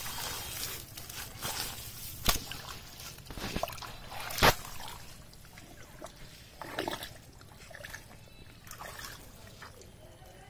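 Hands digging and squelching through wet, watery mud, with sloshing and a few short, sharp smacks, the loudest about two and four and a half seconds in.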